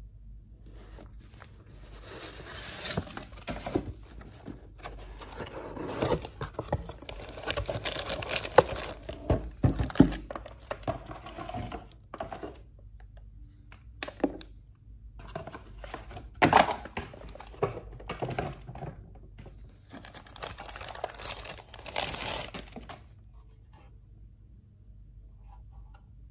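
Plastic packaging crinkling and rustling in several stretches as it is handled and pulled open, with a few sharp knocks and taps in between. It stops a few seconds before the end.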